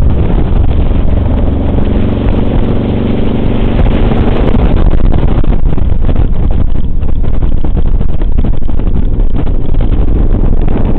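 Suzuki Boulevard C50 V-twin motorcycle engine running under way, mixed with heavy wind buffeting on the microphone. The engine's note stands out about two to four seconds in, after which the wind noise covers most of it.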